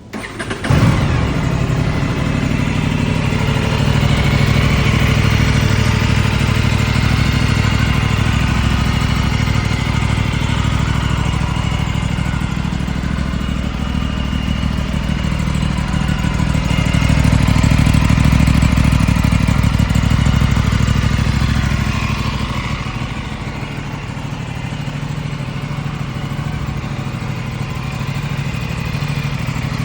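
Aprilia Tuono 457's parallel-twin engine starting up and catching within the first second, then running at idle. Its level swells past the middle and settles back to a lower, steady idle for the last several seconds.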